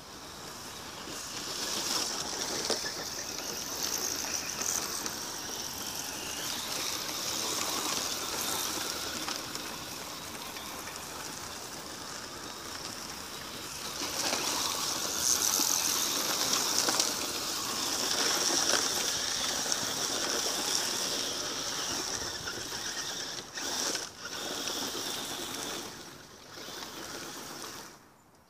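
Electric RC rally car's brushless motor running with a high whine, over the gritty hiss of its tyres sliding and spraying loose dirt; it swells as the car comes close and drops away near the end.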